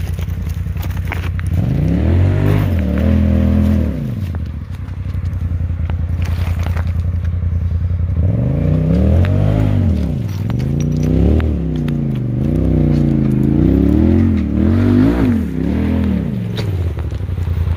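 A Polaris RZR side-by-side's engine revving up and falling back in repeated bursts as it climbs a loose rock slope, once briefly about two seconds in, then again and again from about eight seconds in. Rocks scrape and clatter under the tires, over a second engine idling steadily close by.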